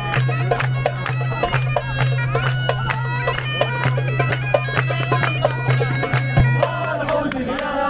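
Bagpipes playing a folk melody over a steady drone, with hand clapping beating time throughout. Near the end the drone stops and men's voices start a chant.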